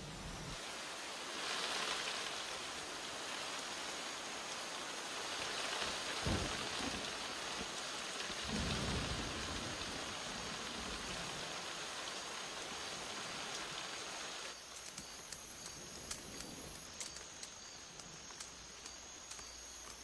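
Tropical rain falling steadily on forest foliage, with a low rumble of thunder about eight to ten seconds in. About fifteen seconds in it thins to a lighter patter of separate drops dripping.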